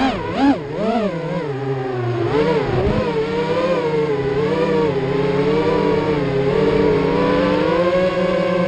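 Racing quadcopter's brushless motors (Racerstar 2205 2600kv with 3-blade props) whining. The pitch rises and falls with throttle changes in the first few seconds, then holds to a steadier drone with slight wavering.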